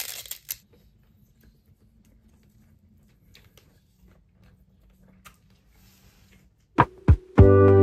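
Crisp nori seaweed crackling as a rice ball is bitten into, fading within the first half second, then a quiet room with a few faint clicks. Near the end two sharp notes sound and music with sustained keyboard chords begins.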